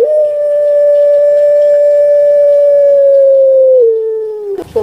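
Puter pelung dove (long-calling Barbary dove, Streptopelia risoria) holding the long drawn-out final 'kwok' note of its call: one steady hooting tone lasting about four and a half seconds, which steps down in pitch near the end and then stops.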